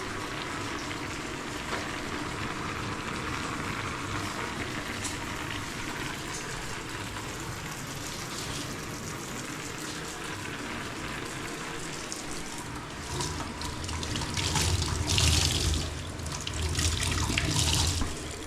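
Water running and splashing, steady at first, then louder and more uneven for a few seconds near the end.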